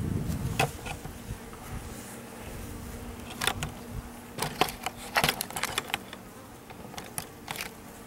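Honey bees flying around an opened hive: a steady buzzing hum, with scattered sharp clicks and knocks, a cluster of them about halfway through and two more near the end.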